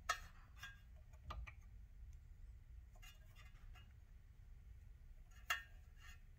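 Sparse small clicks and taps as a key is handled and seated in the metal clamp of a key cutting machine: one sharp click just after the start and another near the end, with lighter taps between, over a faint low hum.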